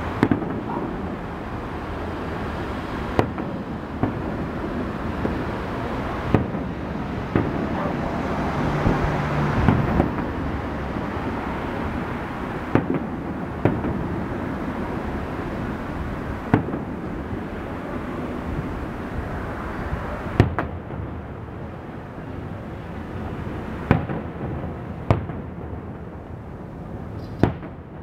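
Fireworks display: aerial shells bursting as sharp bangs at irregular intervals, one every one to four seconds, over a steady background hiss.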